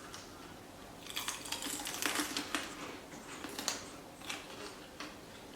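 Crunching of Takis rolled tortilla chips being chewed: a quick, irregular run of crisp clicks and crackles that thins out after about four seconds.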